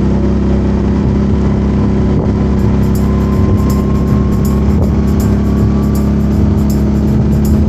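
Steady drone of a Can-Am ATV engine running at an even speed.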